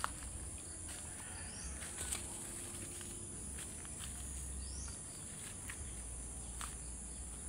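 Rural outdoor morning ambience: a steady high insect drone, a constant low rumble, a few faint bird chirps and scattered light clicks.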